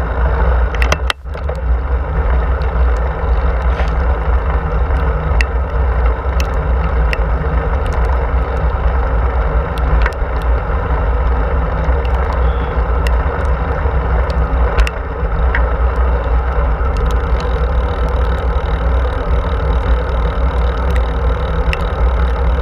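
Steady wind buffeting and tyre rumble picked up by a handlebar-mounted camera on a bicycle rolling along an asphalt path, with scattered small clicks and rattles. The noise dips briefly about a second in.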